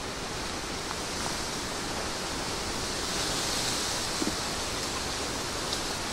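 Steady wind rushing over the microphone and through the surrounding vegetation, an even hiss with a couple of faint ticks.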